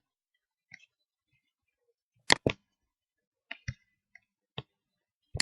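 Computer mouse clicking: a series of short, sharp clicks, some in quick pairs like double-clicks.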